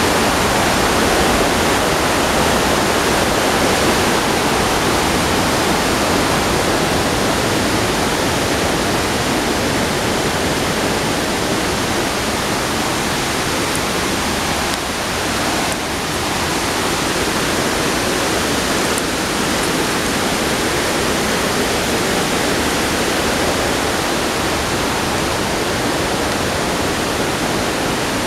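Steady rush of a waterfall, an even, unbroken roar of falling water.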